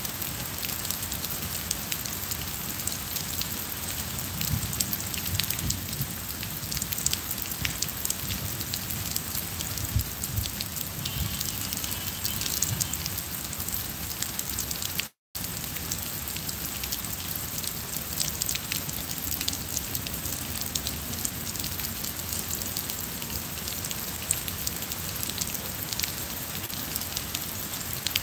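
Steady rain falling, a constant hiss with many small drop patters. The sound drops out completely for a split second about halfway through.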